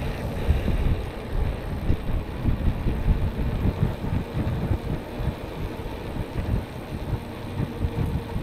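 Wind buffeting the microphone on a moving e-bike: a gusty, uneven low rumble, with a faint steady tone underneath.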